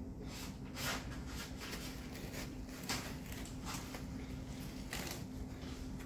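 Metal spoon digging into and scooping the flesh of a halved watermelon: a few faint, scattered scrapes.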